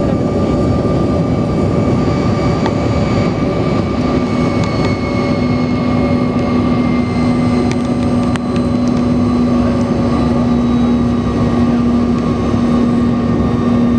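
Jet airliner cabin noise during descent to land: a steady engine and airflow roar under a strong, even hum, with a few faint high whining tones drifting slowly down in pitch.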